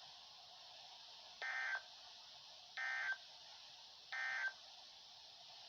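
Three short bursts of Emergency Alert System SAME data tones from NOAA Weather Radio, the end-of-message code that closes the warning broadcast, each a fraction of a second long and just under a second and a half apart. Faint radio hiss lies between them.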